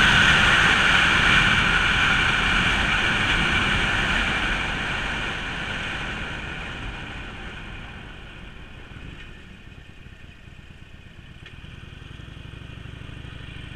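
Harley-Davidson Forty-Eight's V-twin engine running with wind rushing over the microphone, fading steadily over the first eight seconds as the motorcycle slows. It then settles to a lower, steady engine sound toward the end.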